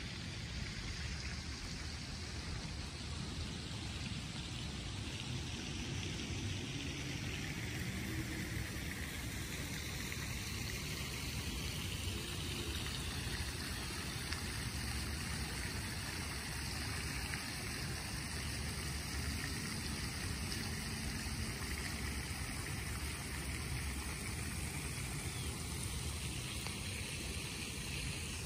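Steady rain falling on foliage, wet paving and a pond, an even hiss of water.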